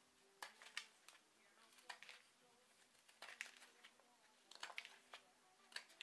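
Knife blade shaving a small wooden stick as it is whittled: short, crisp scraping cuts in small clusters, a few strokes every second or so.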